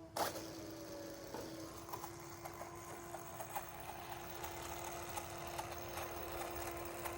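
An electric RC car's drivetrain: a sharp knock, then a steady whine with rapid, irregular clicking and rattling, the kind that comes from broken driveline parts. The slipper clutch is already slipping, and a wheel has broken loose.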